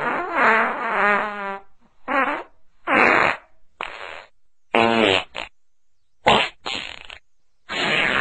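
A string of fart sound effects: about eight short blasts with brief gaps between them. The first is the longest, a pitched, fluttering fart that wavers up and down; another long one starts near the end.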